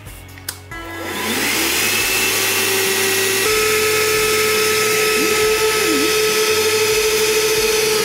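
Shark Cordless Pet Perfect II hand vacuum switched on with a click, its battery motor whining up to speed and then running steadily. About three and a half seconds in the whine steps up in pitch as the nozzle is held sealed against the lips to test the suction, and at the very end it is switched off and starts to wind down.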